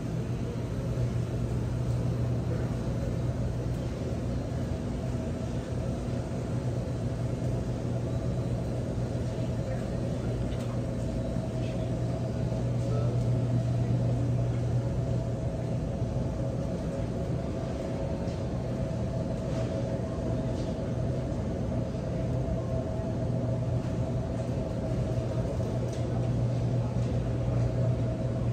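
Steady low mechanical hum with a higher steady whine above it, the running noise of glass-door supermarket freezer cases and store ventilation, with a few faint ticks and clatters.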